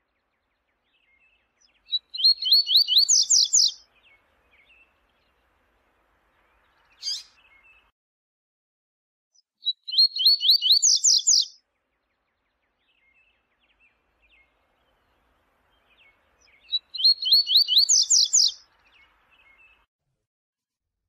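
Double-collared seedeater (coleiro) singing the 'viu-tiu' song: three short, high phrases of rapidly repeated notes, each about two seconds long and a few seconds apart, with a single short call between the first two.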